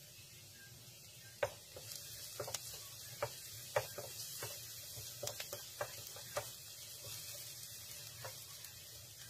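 Minced garlic sizzling in a nonstick pan while a spatula stirs it, knocking and scraping against the pan about a dozen times from about a second and a half in. The sizzle gets louder once the stirring starts.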